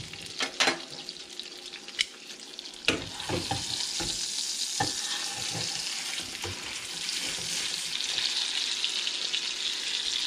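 Ribeye steak sizzling in melted butter in a stainless steel skillet, the sizzle growing louder from about three seconds in. A few sharp metal clinks of a spoon and tongs against the pan come in the first few seconds.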